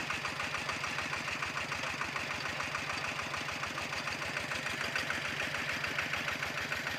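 Small engine driving a water pump, running steadily with an even, rapid chugging pulse while it pumps floodwater out of a rice paddy.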